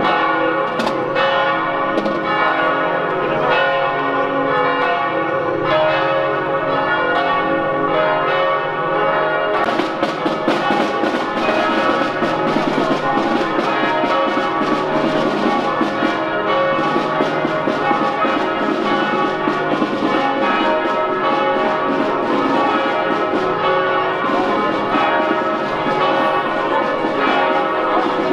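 Church bells pealing: several bells ringing together in a continuous, unbroken peal, the clangour growing denser about ten seconds in.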